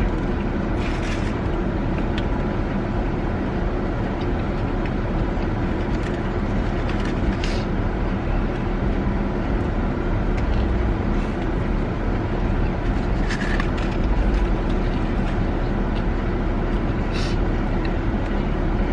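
Steady car engine and road noise heard from inside the cabin of a car in traffic, a low even rumble with no break.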